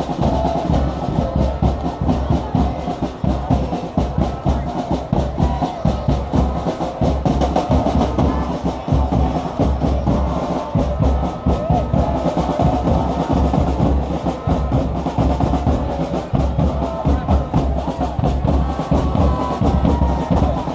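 Fans' drums beating a fast, steady rhythm, with the crowd chanting along.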